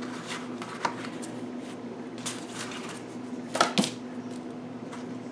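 Paper and cardstock being handled on a tabletop: a few light taps and rustles as the sheets are laid down and pressed, the loudest about three and a half seconds in, over a faint steady hum.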